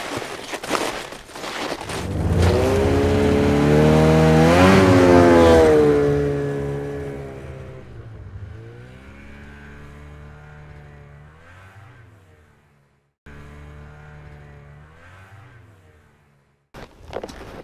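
Snowmobile engine pulling away and driving off. It comes up loud about two seconds in, swells and dips in pitch as it passes, then fades into the distance with a few more rises in pitch as it accelerates. Snowshoe footsteps crunch in the snow at the start and again at the very end.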